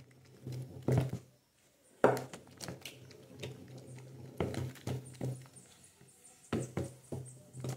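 Wooden spoon knocking and scraping against the sides of a plastic bucket while a homemade detergent mix is stirred, in irregular knocks a second or two apart, over a low hum.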